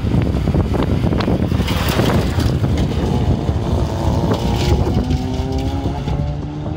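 Touring-class hillclimb rally car at full throttle passing close by, first a loud rush of engine and road noise with sharp crackles, then an engine note that rises in pitch as the car accelerates out of the hairpin and climbs away.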